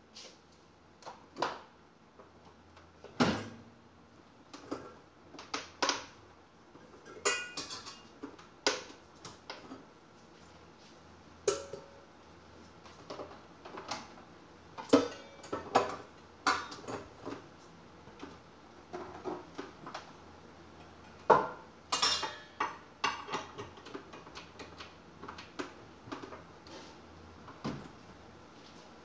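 Kitchenware being handled on a counter: irregular clinks and knocks of dishes, utensils and pots, a few of them ringing briefly like metal or glass.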